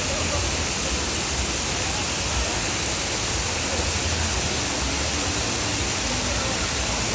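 Steady rush of water pouring down the steps into a water-park ride pool.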